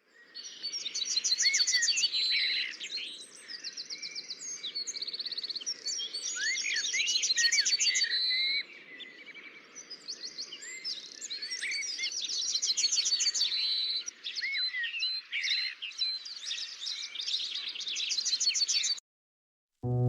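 A chorus of songbirds singing over one another: fast trills and rising and falling whistled notes, quieter for a moment about halfway through, cutting off suddenly near the end.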